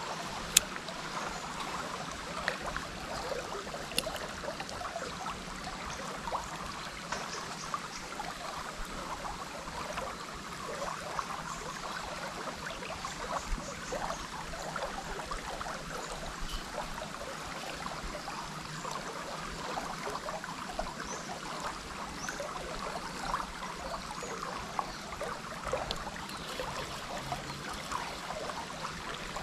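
River water flowing and trickling: a steady, even rush with many small crackles running through it. A sharp click sounds about half a second in, and another at about four seconds.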